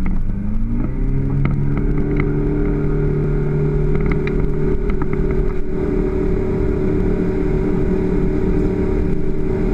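Motorboat engine speeding up over the first second or so, then running at a steady speed.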